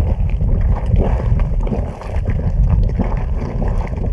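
Wind buffeting the microphone with a steady low rumble, over the irregular bubbling and splashing of a small geyser vent spouting hot water.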